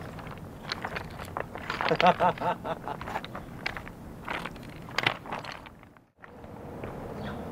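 Footsteps crunching and clicking on the loose stones of a rocky dry creek bed, in irregular steps. A brief warbling sound comes about two seconds in, and the sound drops out to near silence for a moment near the end.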